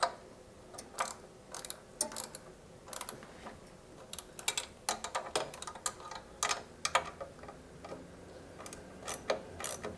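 Socket ratchet clicking in short, irregular runs as the mini bike's engine mounting bolts are snugged down.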